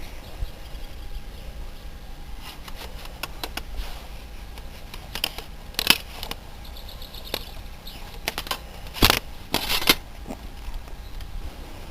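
Handling noises: scattered light clicks and rustles, with a few short, louder scrapes past the middle.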